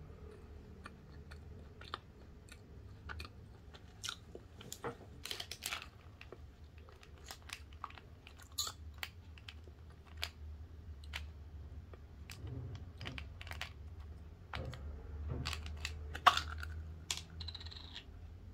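Scattered small clicks and crackles as a clear plastic tube of plum candies is turned in the hands and opened, with one sharp click about 16 seconds in, over a low steady hum.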